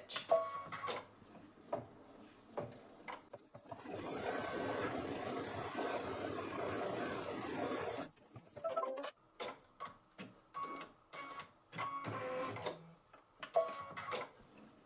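Brother Luminaire embroidery machine stitching out a blanket stitch around an appliqué. It runs in short bursts of needle strokes, with one steady run of about four seconds in the middle.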